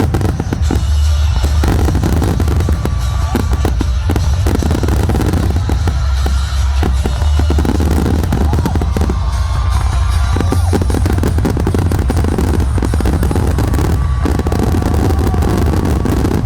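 Fireworks finale: a dense, continuous barrage of aerial shell bursts, many bangs and booms overlapping in quick succession over a steady low rumble.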